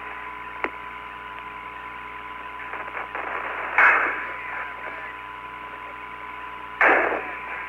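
Hiss of the Apollo 17 air-to-ground radio channel with a thin steady tone. A click comes about half a second in, and two short bursts of static come at about four and seven seconds.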